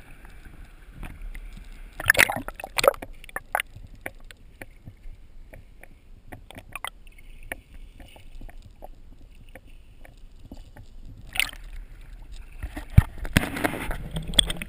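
Shallow seawater sloshing and splashing around a GoPro as it dips in and out at the surface, with many sharp clicks throughout. Louder splashes come about two seconds in, near eleven seconds, and again near the end.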